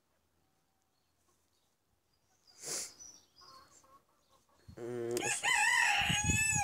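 A rooster crowing: one long crow about two-thirds of the way in that rises and then holds its pitch.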